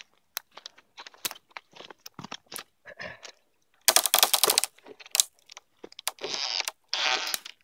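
Crunching and crackling in dry forest litter and twigs, with a quick run of cracking about halfway through as the half-chopped log is bent up and broken at its axe notch. Rustling of branches follows near the end.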